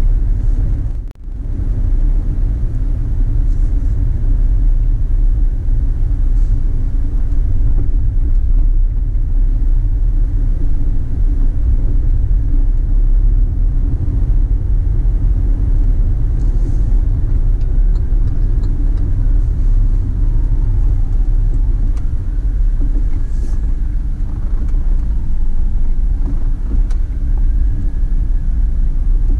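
A car driving, its road and engine noise a steady low rumble that briefly cuts out about a second in.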